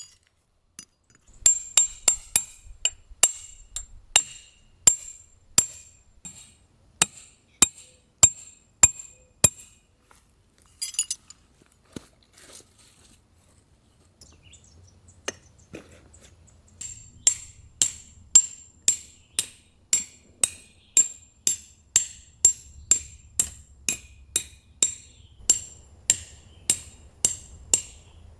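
Hammer strikes ringing off a metal tent peg, steady and evenly paced at about one to two blows a second. A first run of strikes is followed by a short metallic clatter and a pause, then a second, quicker run.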